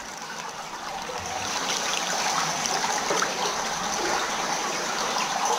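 Running and splashing water in a partly flooded cave passage, growing louder over the first couple of seconds and then holding steady.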